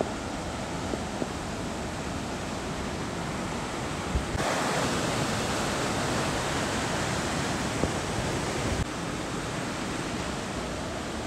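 Whitewater cascade of a rocky mountain stream, water rushing steadily over boulders; it grows louder for about four seconds in the middle.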